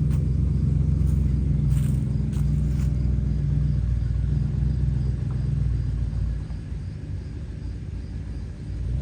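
LS V8 engine of an LS-swapped 1954 Chevrolet Bel Air running with a steady low drone that quietens about six seconds in.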